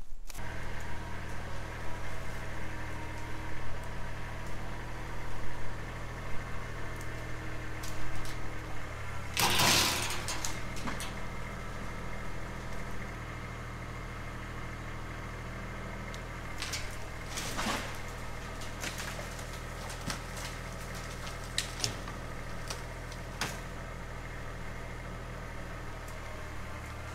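An engine idling steadily. There is a loud, sharp crack-like burst about ten seconds in, and a few shorter sharp knocks around seventeen seconds and again later.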